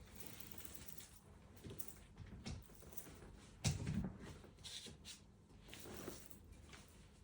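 Faint rustling and shuffling with a few soft knocks, the loudest a low thump about four seconds in, as a person shifts himself across into a manual wheelchair.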